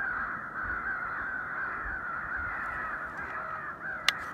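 Many crows cawing at once in a dense, unbroken chorus, with one sharp click about four seconds in.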